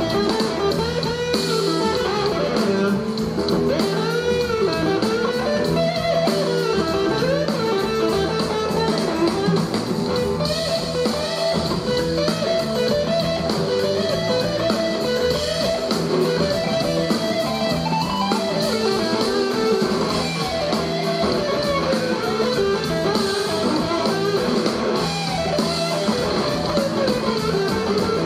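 Live blues-rock band playing an instrumental passage: an electric guitar leads with gliding, bending notes over a drum kit.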